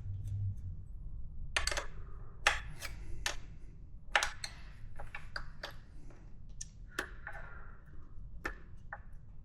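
Hand wrench clicking and clinking on the metal chain-adjuster hardware at a motorcycle's rear axle: a string of irregular sharp metallic clicks as the chain is slackened off for rear wheel removal.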